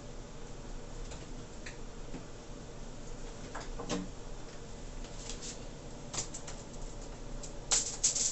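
Quiet kitchen room tone with a few faint clicks and ticks, then near the end a short cluster of crisp crinkles and taps as vegetables are pressed onto a fish on a foil-lined baking tray.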